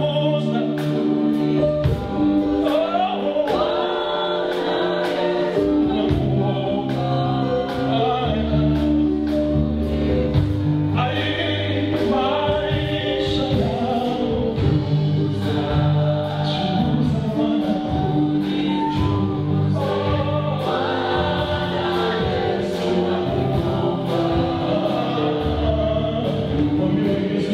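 Gospel worship song: voices singing together over instrumental backing with a steady beat.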